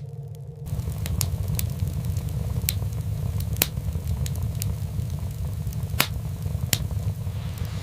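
Fire crackling, with irregular sharp pops over a low steady rumble.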